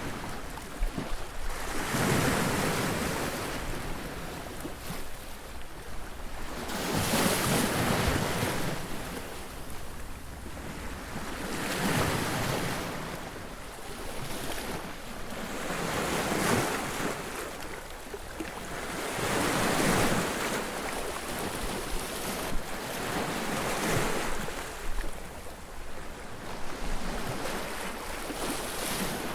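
Ocean surf: waves breaking on a beach one after another, each crash rising and falling away as a swell of hiss about every four to five seconds.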